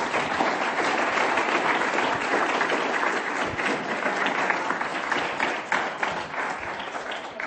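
Audience applauding: many hands clapping at once, steady at first, then gradually tapering off toward the end.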